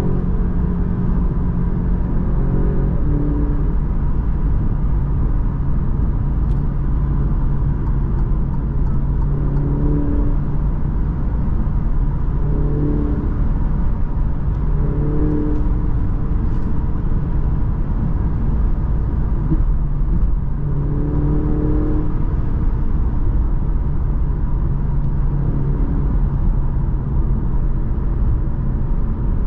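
The 2022 Alfa Romeo Giulia Veloce's 2.0 turbocharged four-cylinder engine, with tyre and road rumble, heard from inside the cabin while cruising at highway speed. A steady drone, with engine notes swelling and fading now and then as the throttle changes.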